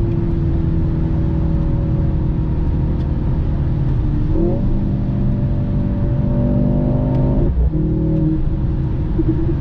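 Inside a 2023 Mercedes-AMG C43 at Autobahn speed: the 2.0-litre turbocharged four-cylinder's drone over heavy tyre and road rumble, a sound the driver finds extremely fake. About four and a half seconds in the engine note jumps up in pitch and climbs slowly, then cuts off abruptly some three seconds later and drops back to a lower drone.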